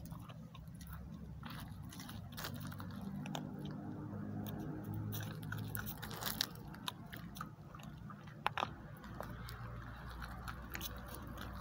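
A dog chewing and crunching its food, with irregular sharp crunches of teeth on something hard, such as bone or biscuit.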